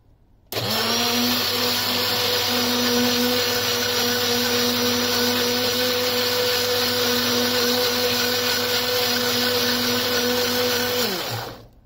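Electric blender switched on with a sudden start, its motor running at a steady pitch as it blends banana and milk into a shake, then switched off near the end, the motor winding down with falling pitch.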